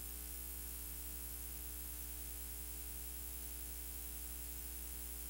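Steady low electrical buzz with hiss and no programme sound: the broadcast soundtrack has dropped out, leaving only the recording's mains hum and noise floor.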